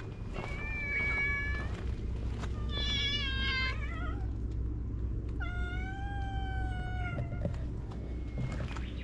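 A cat meowing three times, each call one to two seconds long: the first at a steady pitch, the second higher and wavering, dropping at its end, the third the longest.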